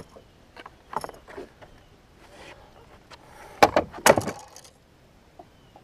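Scattered sharp clicks and knocks from handling a fishing rod and reel on a boat deck while fighting a hooked line, with a quick cluster of clicks about two-thirds of the way through.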